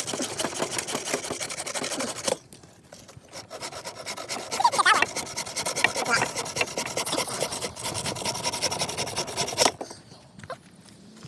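Electric chainsaw fitted with a ripping chain, cutting lengthwise through a log in an Alaskan-style mill: a steady rasping of the chain teeth in the wood. It eases off briefly about two seconds in, then runs on and cuts off suddenly near the end.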